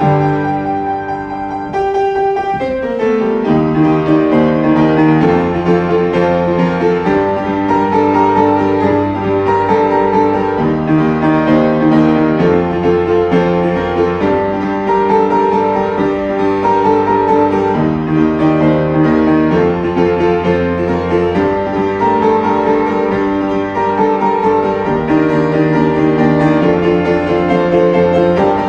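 Background piano music: a steady flow of sustained notes and chords.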